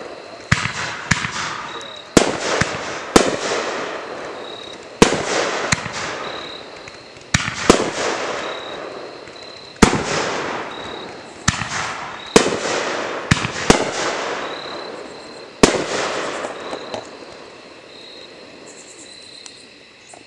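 Aerial fireworks bursting in the sky: about a dozen sharp bangs at uneven intervals, each trailing off over a second or so. The bangs stop about four seconds before the end.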